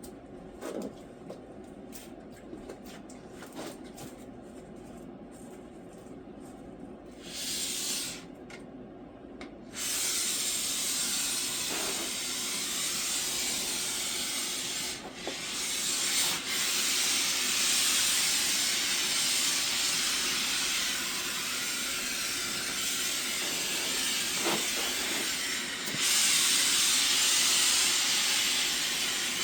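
Expanding spray foam hissing out of its can: a short burst about seven seconds in, then a steady spray from about ten seconds on, a little louder near the end. Faint handling ticks come before it.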